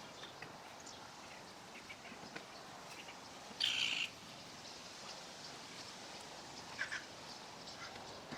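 Birds chirping and calling faintly in the background, with one louder half-second sound about three and a half seconds in and two short calls near the end.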